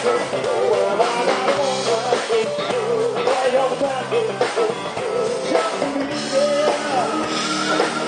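Live rock band playing, electric guitar and drums under a singer who holds long, wavering notes.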